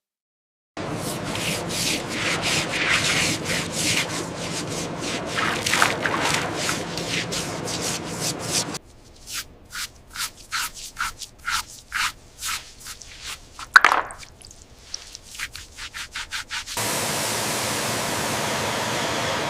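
Abrasive scraping and rubbing on a hard surface. It starts as a dense stretch of scraping, turns to separate strokes at about two a second, and ends in a steady hiss.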